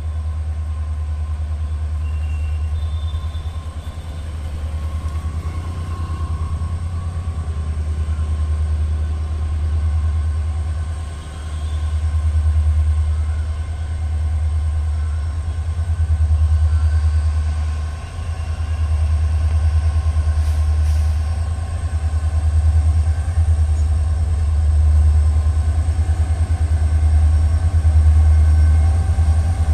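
Diesel locomotives at the head of a freight train approaching slowly, their engines giving a steady low rumble that swells and dips twice.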